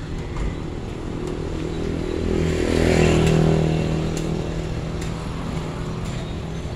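A motor vehicle passing close by on the street, its engine swelling to a peak about three seconds in and then fading, over steady traffic noise.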